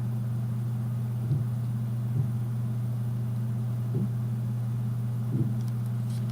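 Off-brand CA-PS700 AC adapter (ACK-E12 dummy-battery type) powering a camera that is recording, giving off a steady low electrical hum. A few faint soft ticks come over it.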